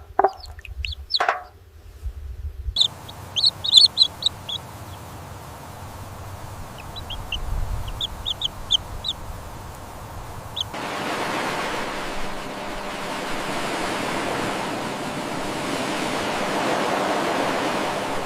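Chickens clucking for about a second and a half. After a break, a run of short, high chirps from small birds or chicks, scattered over a few seconds. From about 11 seconds on, a steady rushing noise.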